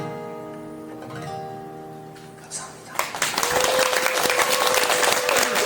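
Last acoustic guitar chords of a live song ringing out and fading, then about three seconds in the audience breaks into applause and cheering, with one long held cheer above the clapping.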